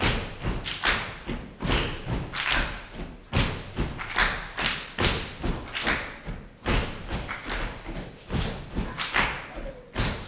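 A group of children stomping and clapping together in rhythm on a stage: sharp thuds and claps about twice a second, with no music.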